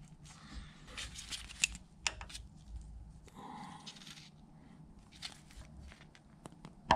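Small-parts handling: pliers and gloved fingers working oil-line fittings on a Bridgeport mill's table feed nut, with scattered light metal clicks and glove rustling, and a sharper click at the very end.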